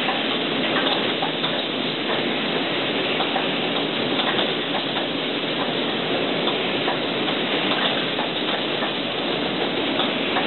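Automatic spray-painting line running: a steady hiss from the air spray guns and booth, with scattered light clicks from the chain conveyor.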